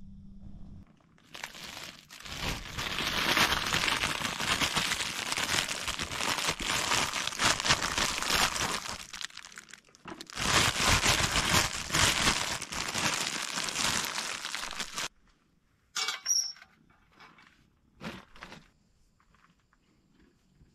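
Plastic bread bag crinkling loudly as it is handled and opened, in two long stretches with a short break between, followed by a few light clicks and taps.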